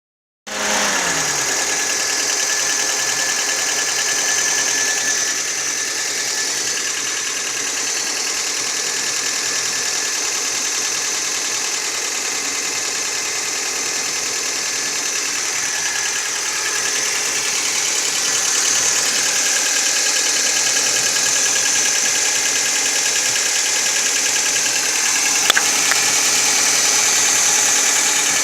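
1995 Toyota Tercel engine idling steadily, with a mechanical noise that the owner began hearing two months after its timing chain and valve clearances were adjusted, and suspects is abnormal. One brief sharp click near the end.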